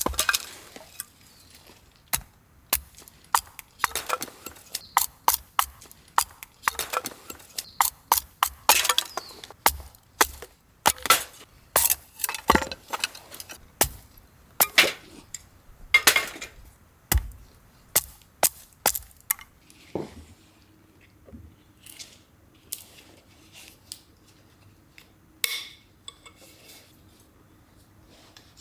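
Camping gear being handled: irregular clicks, clinks and knocks of hard items, dense for about the first twenty seconds and then sparser.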